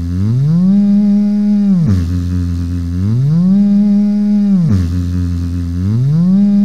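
A man's deep hummed voice, looped on a loop pedal: it slides up from a low note to a higher one, holds it, then drops back down, the same phrase repeating about every three seconds.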